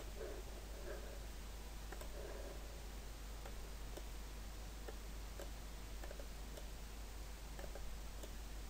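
Scattered faint computer mouse clicks over steady background hiss and low hum, as the mouse drags to resize a chart on screen.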